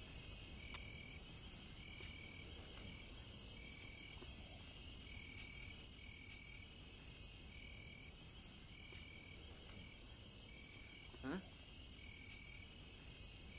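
Night insects, crickets, trilling steadily, with a short pulsed chirp repeating about once a second. About eleven seconds in a brief rising sound stands out above them.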